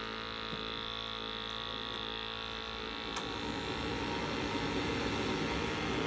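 Worcester 30si combi boiler starting up on its newly fitted fan: a steady hum, then the rushing of the fan and burner grows steadily louder from about three seconds in.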